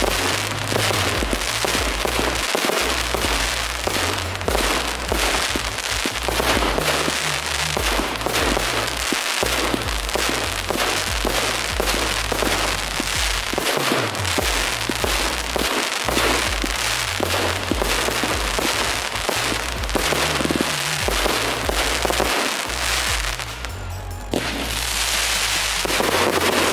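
Fireworks display: a dense run of bangs and crackles over music with a deep bass line. Near the end the bangs dip briefly, then a steady bright crackling hiss takes over.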